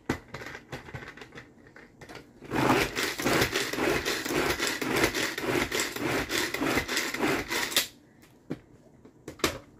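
Tupperware hand chopper chopping onion: a run of rapid, rattling strokes of the blades through the onion that lasts about five seconds, with scattered clicks before and a few sharp clicks near the end.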